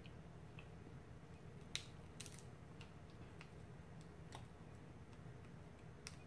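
Faint, sparse clicks and cracks of crab shell being picked apart by hand, over a low steady hum.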